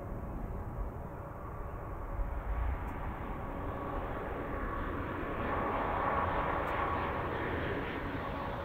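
Sukhoi Superjet 100 airliner's twin SaM146 turbofans on final approach, with a steady whine through the engine noise. The sound grows louder as the jet nears and peaks about six seconds in.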